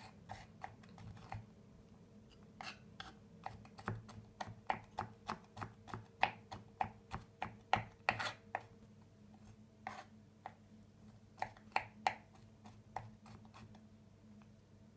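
Kitchen knife chopping a garlic clove into small pieces: a run of sharp, irregular chopping taps, about two a second, quickest and loudest in the middle and thinning out towards the end.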